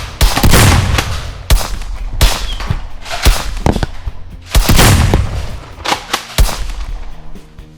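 A rapid series of loud gunshot-like blasts, about eight in under seven seconds, each with a booming tail, over background music.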